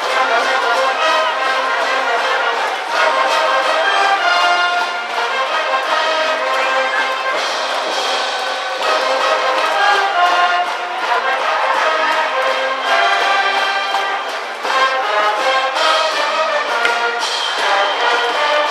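A high school brass band of trumpets and trombones plays a baseball cheering tune, with loud, sustained phrases that change every few seconds.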